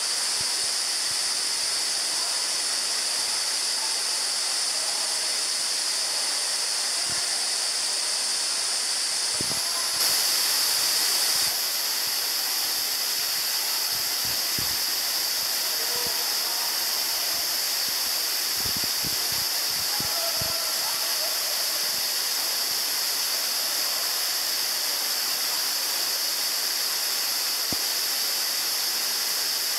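Steady rush of water from a waterfall and stream, an even hiss throughout that turns briefly a little louder about ten seconds in.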